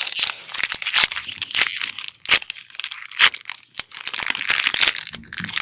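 A Magic: The Gathering collector booster pack's plastic wrapper being torn open and crinkled by hand: dense crackling and rustling punctuated by many sharp crackles.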